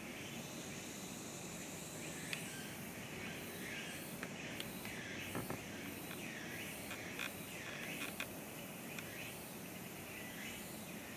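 Outdoor forest ambience: a steady hiss of insects with repeated chirping calls from the surrounding trees through the middle stretch, and a few sharp clicks.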